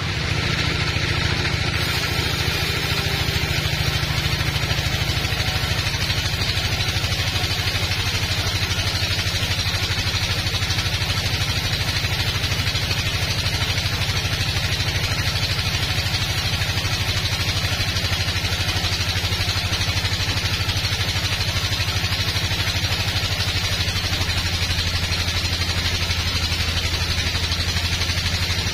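Band sawmill running steadily: a continuous low machine hum with an even hiss over the top.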